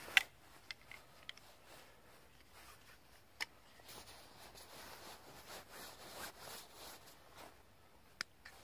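A few sharp clicks and snaps from hands handling small gear, the loudest right at the start and others about a second in, near the middle and near the end, over faint rustling of clothing and dry leaves.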